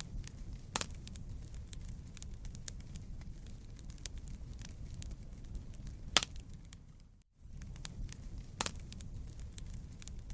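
Wood fire crackling in a fireplace: a steady low rumble of flames with frequent small crackles and three sharper pops. The sound cuts out for a split second about seven seconds in, then resumes.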